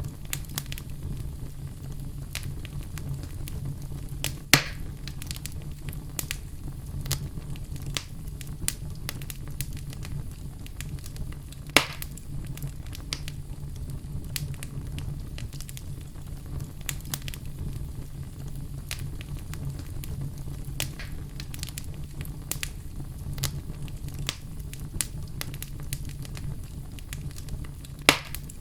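Wood fire in a fireplace crackling, with a steady low rumble under a stream of small pops. Three louder, sharper pops stand out, about four seconds in, near the middle and near the end.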